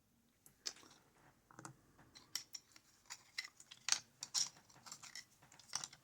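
Irregular light clicks and taps, a dozen or so spread over several seconds, from handling the parts of a gutted high-pin-count pin tumbler lock after it was turned too far and its pin stacks came loose.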